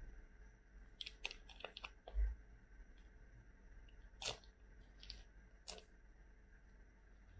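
Plastic sauce sachet of a cup ramen being twisted and torn open by hand: scattered sharp crinkles and crackles of the film, with one dull low thump a little over two seconds in.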